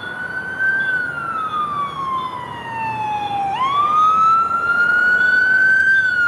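Ambulance siren sounding a slow wail while the ambulance is on an emergency run: one long tone that rises, slides down for about three seconds, then sweeps back up about three and a half seconds in.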